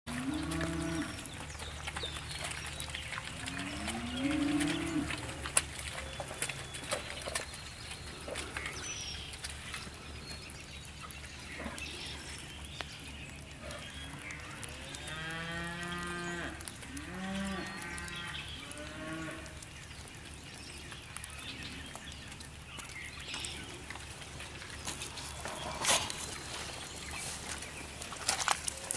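Cattle mooing: a couple of calls near the start, then a run of several calls around the middle, with scattered knocks and clatter between them.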